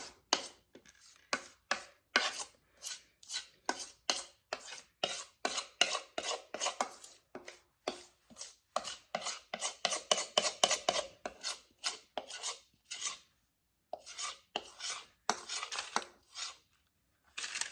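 A spoon scraping around a bowl of thick melted chocolate mixture in quick, repeated strokes, about two a second, pausing briefly twice near the end.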